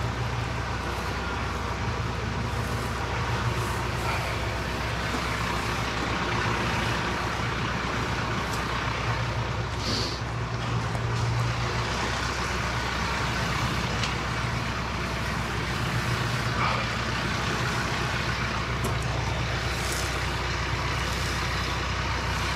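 Tractor engine running steadily with an even low hum while its front loader holds up a round hay bale.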